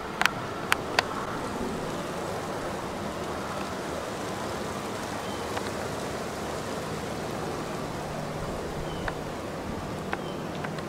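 Steady outdoor background noise, a hiss with a faint low hum underneath, broken by three sharp clicks in the first second and a few fainter ticks near the end.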